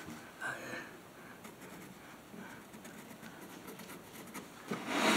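Pencil lead scratching faintly along a rough chestnut wood slab as a curved outline is drawn. A short, louder rush of noise comes near the end.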